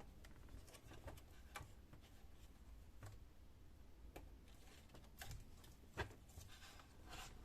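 Faint, scattered small clicks and taps from hands working inside an opened laptop, unlatching its internal cable connectors; the sharpest click comes about six seconds in.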